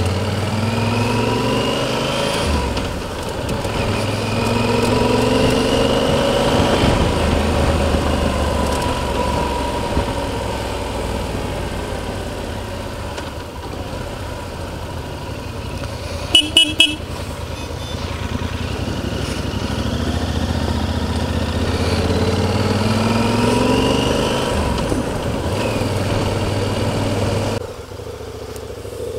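Yamaha Super Ténéré parallel-twin motorcycle engine running under way, its pitch rising again and again as it accelerates through the gears. About halfway through, three quick horn toots. Near the end the engine sound drops away suddenly as the bike comes to a stop.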